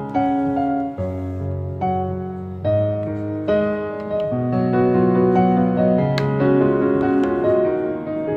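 Background piano music, a melody over held chords with notes changing about every half second to second.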